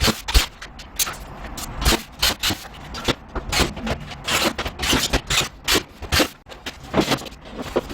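Rapid, irregular knocks, clacks and scraping, several a second.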